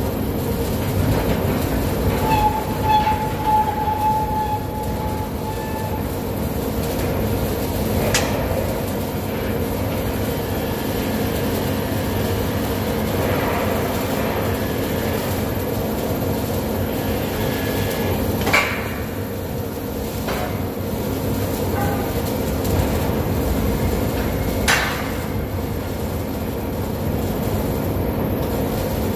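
Steady machinery noise of a steel fabrication shop floor with a low hum, broken by three sharp metal clanks about 8, 18 and 25 seconds in.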